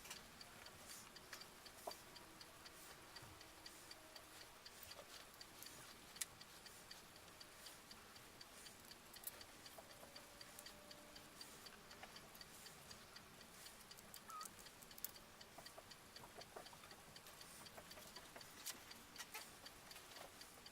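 Near silence with a faint, steady clock-like ticking, broken by a few scattered light clicks, the sharpest about six seconds in.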